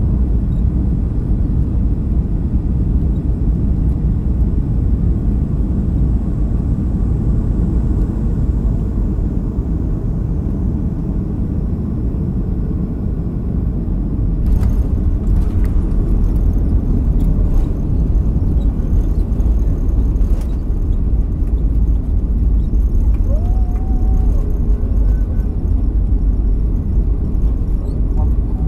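Loud, steady low rumble of a Boeing 737-300 heard from inside the cabin over the wing, its CFM56 engines and airflow on short final. About halfway through, a few knocks and rattles mark the wheels touching down, and the rumble carries on as the jet rolls along the runway with its spoilers up.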